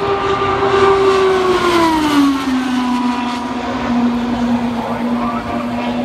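IndyCar's 2.2-litre twin-turbocharged V6 passing at speed. Its engine note drops in pitch as the car goes by, about two seconds in, then holds a steady lower note as it moves off.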